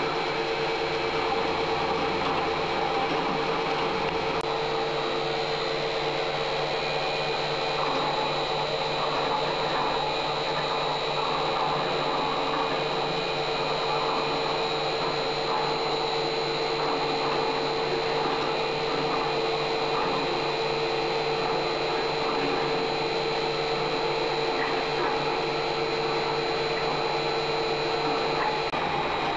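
CNC-converted Acra 9x42 milling machine running: a steady motor whine with a higher tone above a constant hum. The lower part of the tone drops out just before the end.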